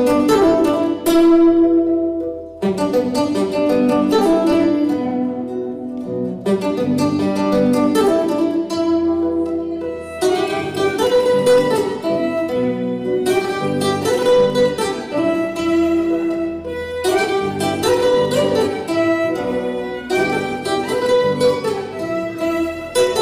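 Instrumental introduction of a Quechua song, played on string instruments: plucked strings with a bowed violin line, in phrases with short breaks between them. There is no singing.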